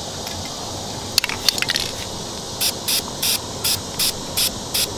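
Aerosol spray paint can spraying in a few short sputtering bursts about a second in. It is followed by a regular train of short high-pitched pulses, about two and a half a second, over a steady high hiss.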